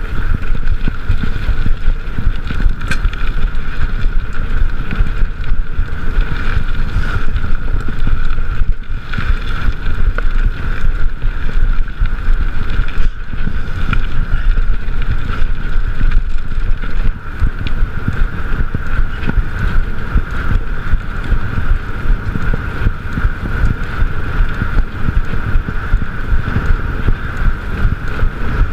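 Wind buffeting the microphone of a chest-mounted GoPro as a mountain bike is ridden along a trail, mixed with the rumble and rattle of the tyres and bike.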